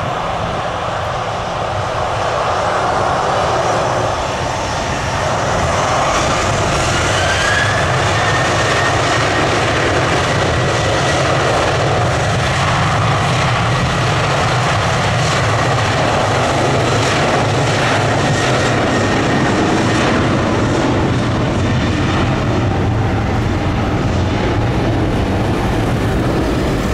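Boeing 737-800's twin CFM56 jet engines spooling up for the takeoff roll: loud jet engine noise with a whine that rises about six seconds in, then holds at a steady high pitch as the airliner accelerates away.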